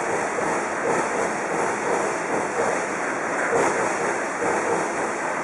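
Airport terminal building shaking in a strong earthquake: a steady rattling rumble of the hall's structure and fixtures, with small swells.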